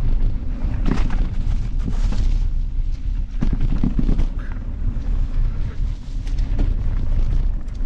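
Mountain bike riding down a rough trail: wind buffeting the microphone as a steady low rumble, with sharp knocks and rattles from the bike over the ground, most dense about three and a half seconds in.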